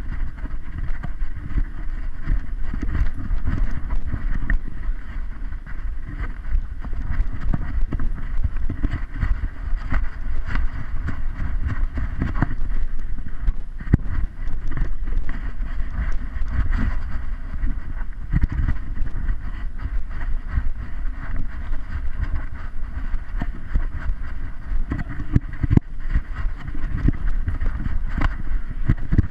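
Continuous low rumble with irregular knocks from a GoPro camera strapped to a moving dog's harness, jostled by the dog's movement.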